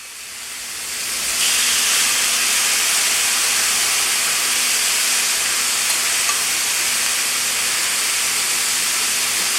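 Chicken and vegetable stir-fry sizzling steadily in a hot pan with its sauce just poured in. The hiss swells over the first second and a half, then holds steady.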